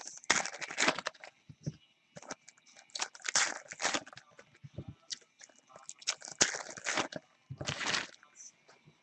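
Foil trading-card pack wrappers being torn open and crinkled by hand, in a series of short, irregular crackling bursts.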